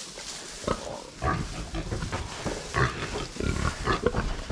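Pigs grunting in short, irregular bursts while nosing through straw, with the straw rustling.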